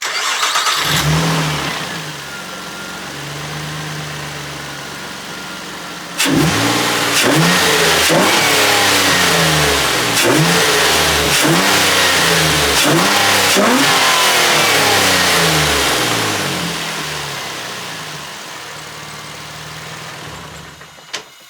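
Nissan Altima engine fitted with a new cold air intake, first at a fast idle that eases down. It is then revved in a quick series of about eight blips roughly a second apart, and settles back to a steady idle.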